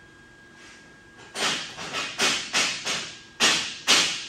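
An irregular run of about eight sharp hammer blows, starting about a second and a half in, each echoing briefly in the large shop.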